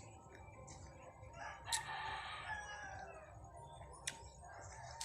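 A rooster crowing once, a long call starting about a second and a half in and falling away at the end, with a couple of short sharp clicks nearby.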